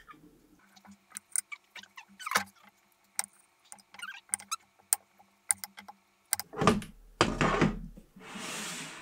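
Shine Muscat grapes being cut in half with a serrated knife on a ceramic plate, with the halves set down: a string of small crisp clicks and taps. Near the end, a louder rustling with a low thump, then a brief hiss.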